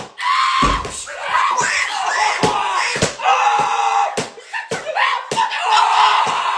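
A person screaming in long drawn-out cries, over a string of sharp knocks or bangs at uneven intervals.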